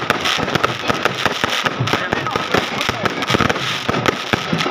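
Fireworks going off in a rapid, unbroken run of bangs and crackles.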